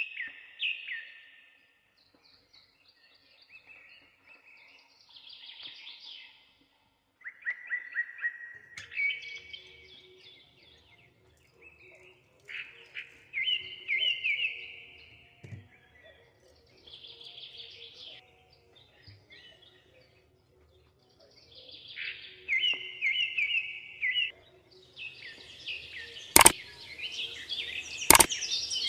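Songbirds chirping and singing in short repeated phrases. Near the end come two sharp clicks, the click sound of a subscribe-button animation.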